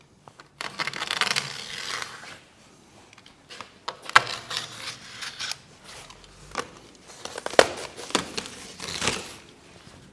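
Foil-faced insulation board and tape being peeled and pulled off a fermenting tank: irregular bursts of crinkling and tearing, with two sharp snaps, one about four seconds in and one past seven seconds.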